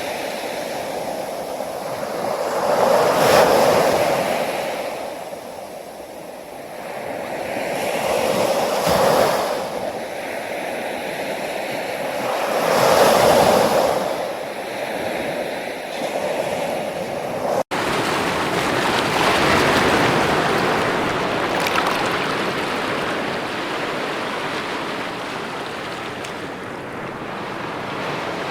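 Ocean surf: waves swell and wash in about every four to six seconds. An abrupt cut about two-thirds of the way through gives way to a steadier, continuous rush of surf.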